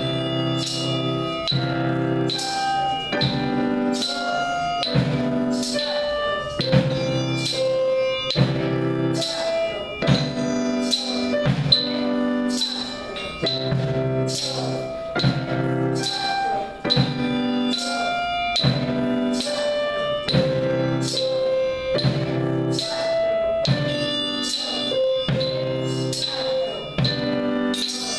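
Digital piano playing chords in a steady beat, with children striking drumsticks along in time, about two strikes a second.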